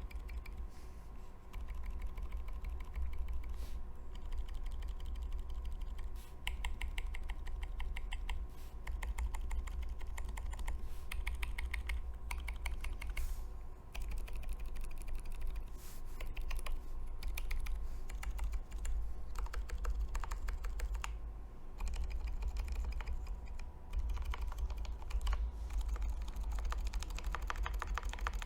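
Typing on a Keychron K4 mechanical keyboard with lubed T1 tactile switches on U4 Boba stems and ePBT keycaps: runs of quick keystrokes with brief pauses now and then. A steady low room hum runs underneath.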